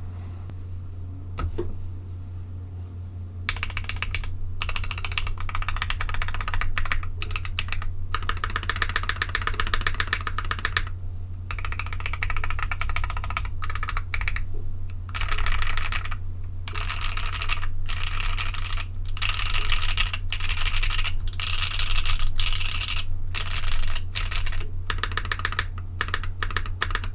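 Typing on a Midway60 60% mechanical keyboard with lubed, filmed Gateron CJ linear switches in a polypropylene plate and GMK Striker keycaps: fast, continuous runs of key presses with a few brief pauses, lighter for the first few seconds. A steady low hum lies underneath.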